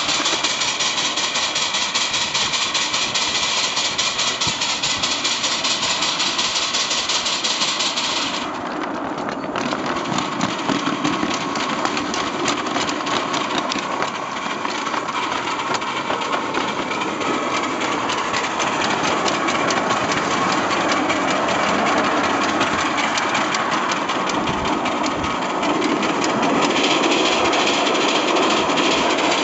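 7¼-inch gauge live steam locomotive running along its track, its exhaust and running gear giving a fast, even beat of chuffs and clicks. The sound dips briefly and changes about eight seconds in.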